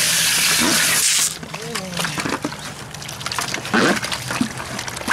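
Water hissing from a hose spray nozzle into a plastic bucket, shut off suddenly about a second in. Then a hand mixing Portland cement and water in the bucket with soft sloshing.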